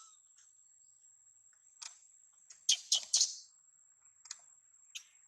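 A baby monkey's short, high-pitched squeaking calls, several in a row: three loud ones close together about three seconds in, with weaker single calls before and after.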